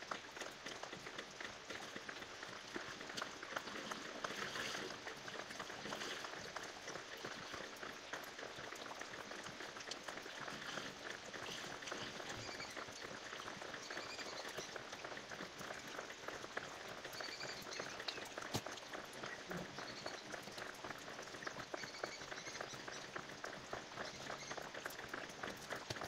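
Water pattering and trickling, a steady dense crackle of small drips.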